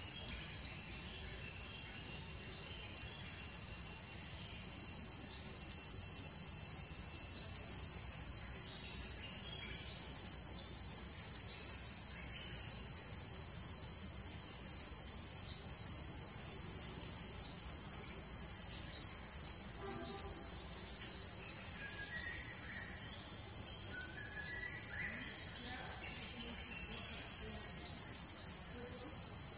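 Loud, steady, high-pitched insect chorus, with a short rising chirp repeating every second or two over the constant drone.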